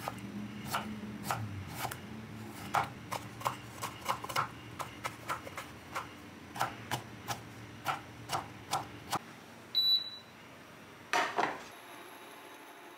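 Chef's knife slicing a carrot on a wooden cutting board: a run of sharp knocks on the board, about two to three cuts a second. Near the end the chopping stops; a short high beep is followed by a knock, then a faint steady hum with a high whine.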